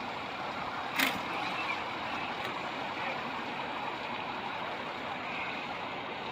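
Steady street background noise with a vehicle hum, broken by a single sharp click about a second in.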